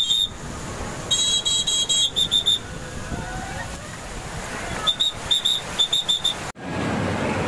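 Surf rushing and breaking on a beach, with a shrill whistle blown over it. There is one long blast about a second in, three quick blasts after it, and a string of about seven short blasts near the end.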